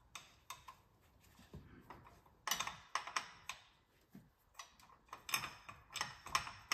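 Light metallic clicks and taps from a CVT drive clutch weight and its pivot pin being handled and pushed into place, coming in irregular clusters, busiest about two and a half seconds in and again near the end.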